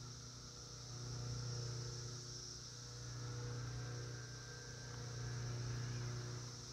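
Electric motor and gear drive of an Element RC Gatekeeper 1/10 rock crawler, a low hum that swells louder in three surges as the truck crawls over roots and a log.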